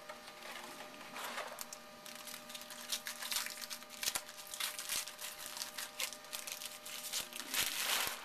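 Trading cards and pack wrappers being handled: irregular rustling and crinkling with a few light clicks, loudest near the end, over a steady electrical hum.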